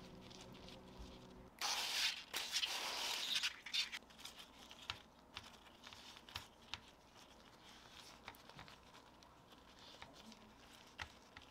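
Gloved hands handling raw bacon-wrapped chicken rolls on a metal baking tray. A burst of rustling comes about two seconds in, then scattered light taps and clicks follow.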